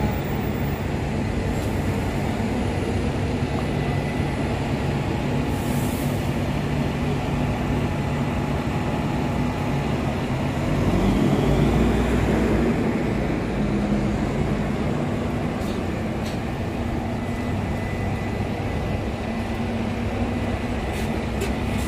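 Busy street traffic noise dominated by the steady hum of double-decker bus engines running close by. It grows louder for a couple of seconds about halfway through.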